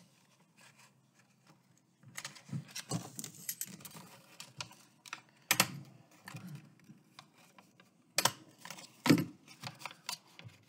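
Handheld stapler stapling folded paper: a few sharp clacks as the stapler is pressed shut, the loudest about halfway and twice near the end, amid lighter clicks and paper handling.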